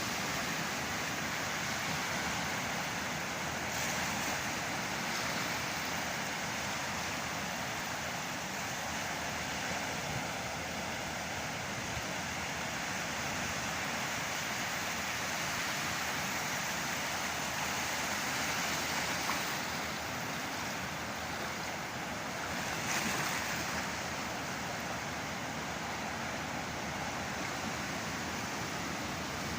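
Surf of a rough sea breaking and washing steadily onto the shore, with a couple of louder surges, one about four seconds in and one about two-thirds of the way through.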